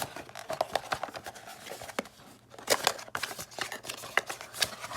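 Packaging being handled as a power adapter is unpacked from its box: a run of short crackles and clicks, loudest just under three seconds in.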